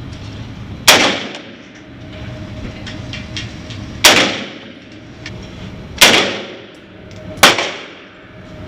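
Four gunshots fired at an uneven pace, each a sharp crack with a short ringing tail.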